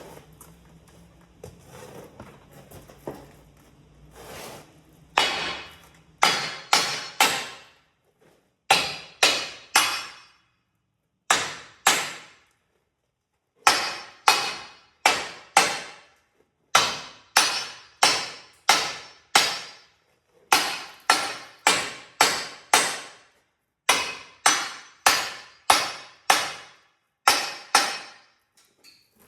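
Hammer striking heavy steel again and again, about two blows a second in runs of several, each blow ringing briefly after it lands. Light clattering comes before the first blows.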